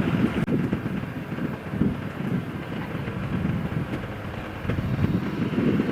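A vehicle on the move: steady road and engine noise.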